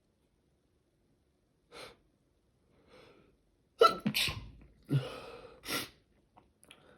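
A person in a sneezing fit: sharp breaths drawn in, then several sneezes in quick succession, the first the loudest.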